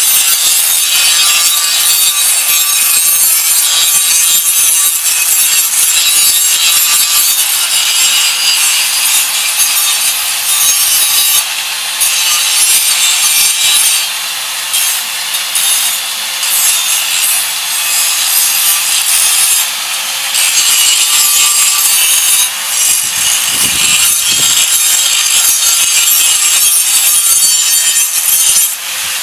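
Electric angle grinder cutting through the rusted sheet steel of a rotted-out Craftsman riding-mower deck: a loud, steady grinding screech that eases off briefly a few times near the middle as the wheel is lifted and set back in, and stops at the very end.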